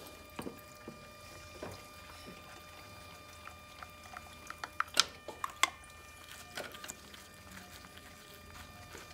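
Scattered light clicks and taps of a compression tester's hose and fittings being handled in the spark plug wells, moved from one cylinder to the next. The sharpest clicks come about five seconds in, over a faint steady whine.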